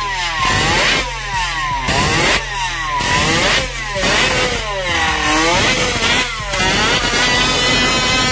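Vintage Suzuki 50 cc two-stroke racing motorcycle revved hard on its stand: the engine's pitch shoots up and falls back about seven times in quick throttle blips. Near the end it settles into a steady high-pitched run.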